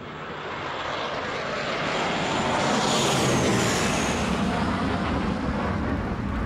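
Sound effect of propeller aircraft flying over: a dense engine drone that swells to its loudest about three seconds in, then eases a little, with a faint high whine near the middle.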